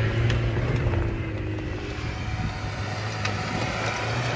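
Lada Niva 1.7's four-cylinder petrol engine running steadily under load as the 4x4 crawls over rocks, with a few short knocks of stones under the tyres. The engine note eases a little about a second and a half in.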